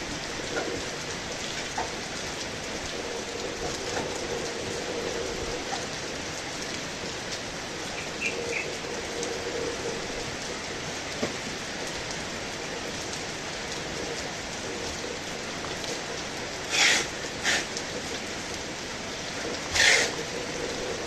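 Heavy rain falling steadily. There are a few short, louder bursts of noise near the end.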